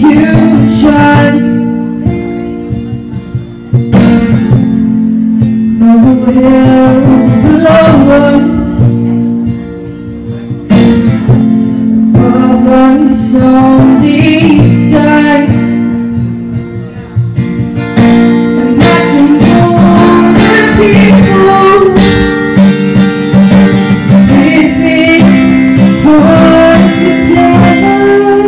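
A woman singing while strumming an acoustic guitar, in phrases with short breaks between them.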